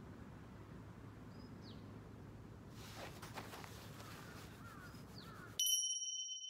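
Quiet outdoor park ambience with a couple of faint bird chirps and some soft rustling. About two thirds of the way through, the background cuts out and a high electronic ding tone, an edited-in sound effect, rings on and slowly fades.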